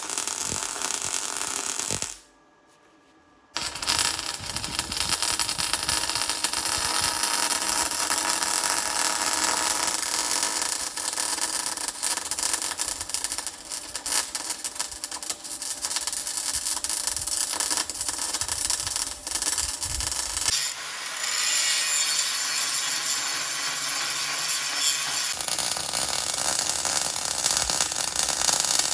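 MIG welder arc crackling steadily on the steel excavator bucket as the crack is welded up, in several edited stretches with a brief silent break about two seconds in.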